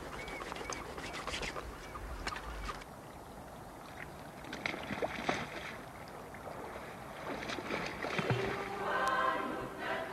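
Water splashing and sloshing around a capsized Greenland kayak as the paddler rolls it. A choir begins singing about nine seconds in.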